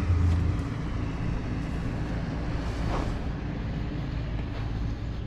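An engine running steadily at a constant speed, a low, even hum that is a little louder in the first half second.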